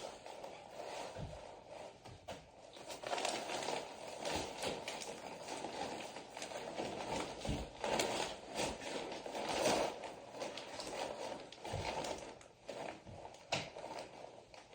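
Insulation batts being handled and pushed into a wall cavity, with irregular crinkling and rustling and occasional light scrapes and clicks.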